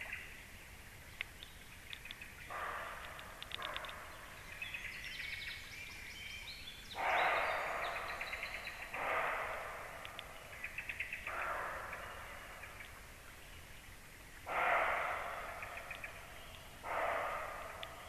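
Deer barking: about seven short, noisy barks a few seconds apart, the loudest near the middle and again near the end. Small birds chirp between the barks.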